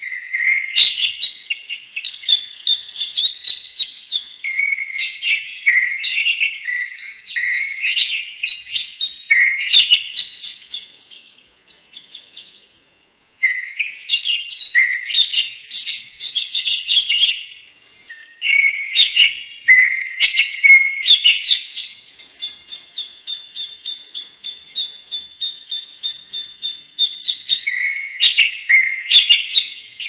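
Lovebird chirping in quick, dense runs of high chirps. There is a short pause about twelve seconds in, and a stretch of fast, even, repeated notes in the later part.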